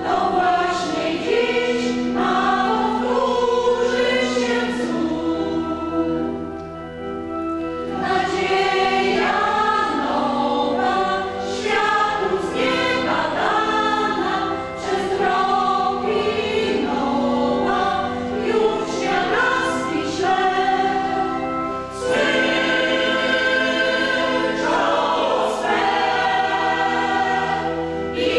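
A mixed choir singing a Polish Christmas carol (kolęda), the voices moving through held chords, with two short breaths between phrases.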